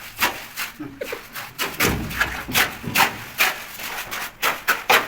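A hand tool scraping or rasping against a hard surface in a steady rhythm of about three strokes a second.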